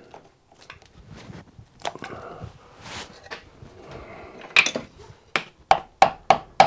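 Light clicks and handling noise from a piston ring clamp around the piston of a Stuart P10 steam engine. Then, from about four and a half seconds in, a steady run of taps, about three to four a second, as a wooden handle knocks the oiled piston down through the clamp into the cylinder bore.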